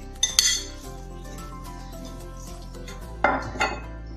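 Metal spoon clinking and scraping against glass dishes as raw beef mince is scraped from a glass dish into a glass bowl: a couple of sharp clinks about a third of a second in and two more near the end. Background music plays throughout.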